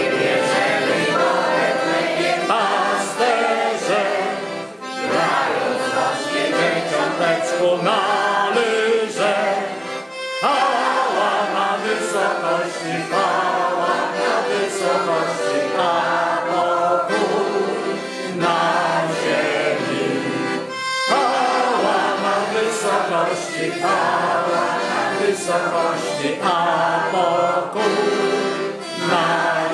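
A mixed group of voices singing a Christmas carol in unison, accompanied by a piano accordion, with short breaks between phrases.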